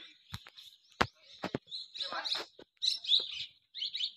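Birds chirping, a run of short high calls from about two seconds in, after three sharp clicks in the first second and a half.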